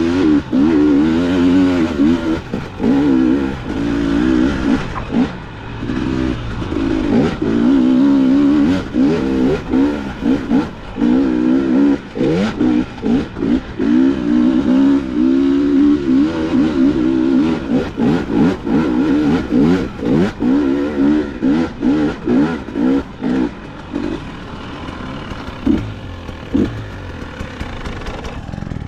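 Dirt bike engine being ridden off-road, its pitch rising and falling again and again as the throttle is opened and rolled off. It runs quieter and choppier over the last few seconds.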